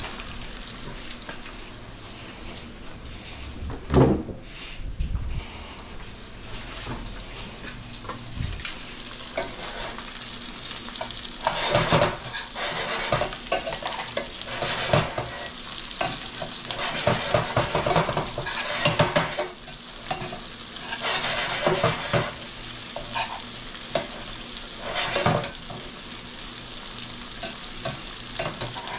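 Extra jumbo shrimp sizzling as tongs lay them into a pan of hot oil, butter and garlic. There is a single loud knock about four seconds in, then the sizzle swells again every second or two.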